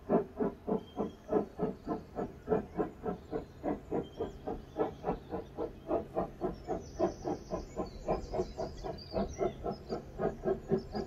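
Steam locomotive No. 131, a 4-4-0, working hard as it leaves Galway, its exhaust beating in a rapid, even rhythm of about four to five chuffs a second.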